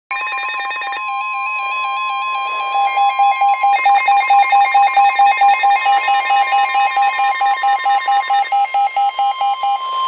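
Several NOAA weather radio receivers alarming together for a tornado warning: the broadcast's steady 1050 Hz warning alert tone, overlaid with the receivers' own electronic alarm beeps and stepped warbling tones. More tones join about four seconds in, and one beep pulses about three times a second until just before the end.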